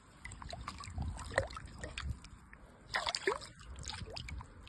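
Water sloshing with small splashes and drips as a caught bass is released back into the water.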